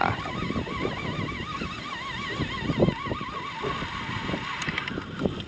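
Fishing reel whining steadily as line is wound in, its pitch wavering up and down, stopping shortly before the end.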